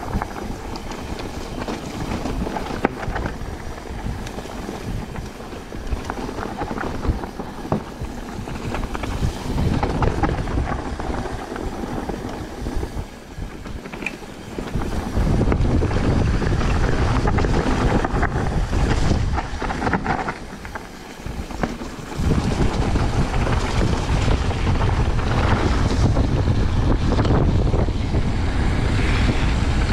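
Mountain bike riding along a trail, its tyres crunching and the bike rattling, with wind buffeting the camera's microphone. The wind rumble grows much louder about halfway through, drops away briefly, then comes back.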